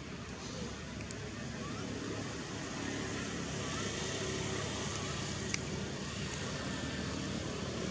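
Steady low rumble of distant vehicle engine noise, slowly growing louder, with one sharp click about five and a half seconds in.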